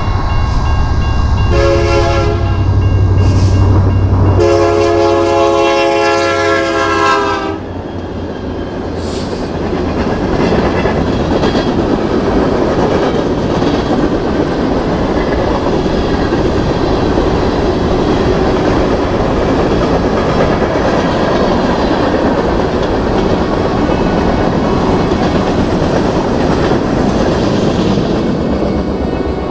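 Freight locomotive air horn at a grade crossing: a short blast, then a long one that ends about seven and a half seconds in, over the low hum of the diesel engines. After it, the train's cars roll through with a steady rumble and clatter of wheels on the rails.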